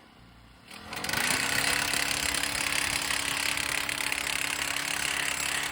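A motor-driven machine spins up with a brief rising whine and then runs steadily with a loud, hissing, even sound.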